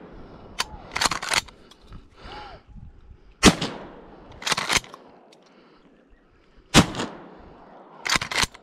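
Two 12-gauge pump shotgun shots about three seconds apart, from a Winchester SXP. After each shot comes a quick double clack of the slide being racked back and forward to eject the empty hull and chamber the next shell. The first double clack, about a second in, follows a shot fired just before.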